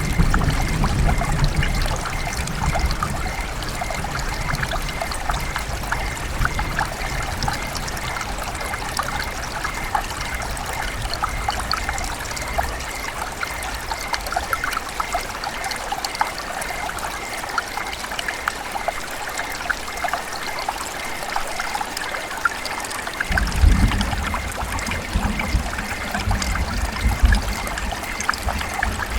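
River water running and trickling steadily, a continuous babble of small splashes, with a deeper low rumble swelling in at the start and again about 24 seconds in.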